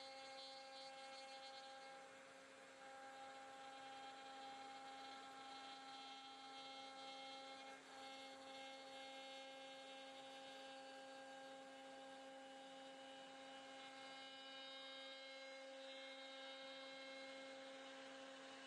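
Faint, steady whine of a 5-axis CNC router's spindle, several even pitches held without change, with a light hiss of the bit cutting wood.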